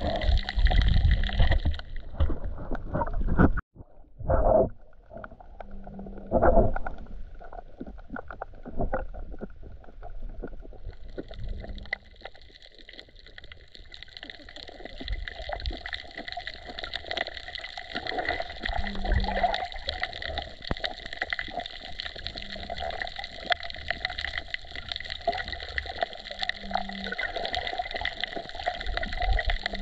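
Water noise picked up by a camera held just under the surface: muffled sloshing with a constant fine crackle. Several louder whooshes of moving water come in the first seven seconds.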